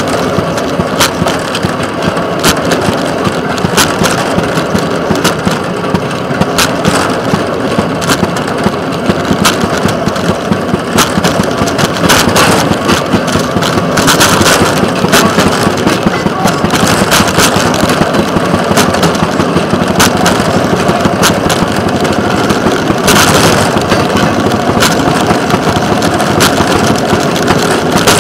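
Small rail excursion car running slowly along the track, its engine running steadily, with frequent sharp clicks and knocks from the wheels on the rails. The running noise swells for a couple of seconds as the car rolls over a switch about halfway through.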